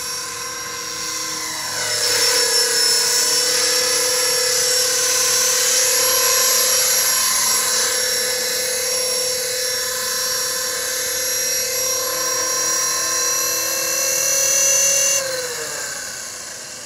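450-size electric RC model helicopter with a Hughes 300 scale body, its motor and gears giving a steady high whine over the rotor noise, louder from about two seconds in. Near the end the high whine cuts off suddenly and the pitch slides down as the motor is throttled off and the rotor spins down.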